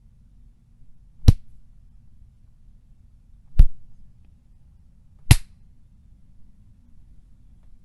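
Three separate punch sound effects: short, hard hits with a heavy low thud, spaced about two seconds apart.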